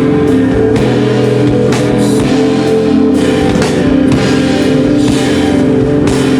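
Rock band playing live and loud: sustained guitar chords over a steady drum beat, with no break.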